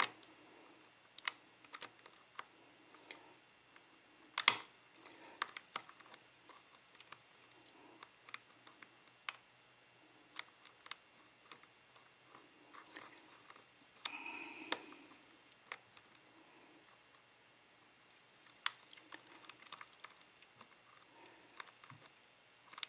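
Faint, irregular metallic clicks and ticks of a lock pick raking and lifting the pins of a CES euro profile cylinder held under tension, with a sharper click about four and a half seconds in and a short cluster of clicks with a slight ring near the middle.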